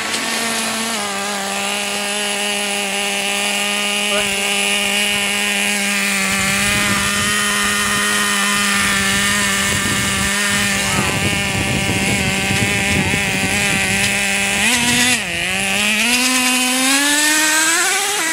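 Gas RC car's small two-stroke engine running at a steady high buzz. About fifteen seconds in its pitch dips briefly, then climbs steadily as it speeds up again.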